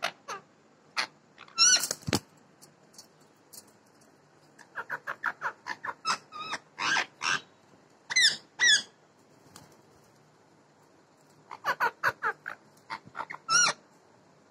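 Parrots squawking at each other in harsh, short calls, some sliding sharply in pitch. The calls come in rapid strings and loud single cries separated by quiet gaps, typical of two birds squabbling.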